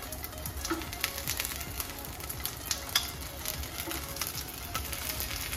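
Skewered sausages sizzling in a frying pan, a steady crackle of many small pops.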